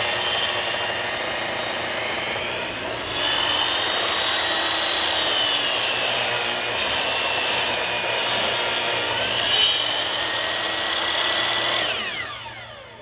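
Ryobi 10-inch table saw running and cutting through a board on its original blade, the whine changing about three seconds in as the blade bites into the wood. Near the end the saw is switched off and the blade winds down with a falling whine.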